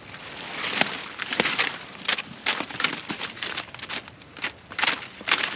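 Irregular crisp crackling and snapping of cauliflower leaves and stalks being cut and handled, several snaps a second over a rustling background.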